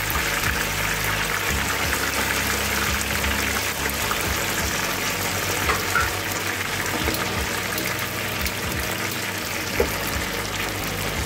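Hot oil sizzling and bubbling steadily around chicken lollipops being shallow-fried a second time, to make them crispier. A few sharper pops come about six seconds in and again near the end.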